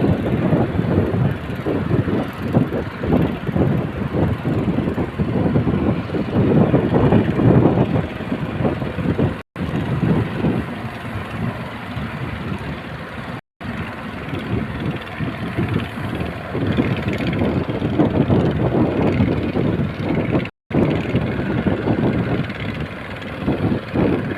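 Rough, rumbling noise of a boat at sea in heavy waves, with engine and wind on the microphone running together. It is cut off abruptly three times, where separate clips are joined.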